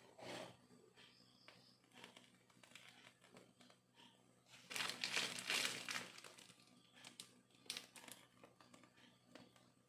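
A plastic piping bag crinkling as it is squeezed to pipe cream roses. The crinkling is loudest for about a second and a half midway, with small handling clicks around it and a faint low hum beneath.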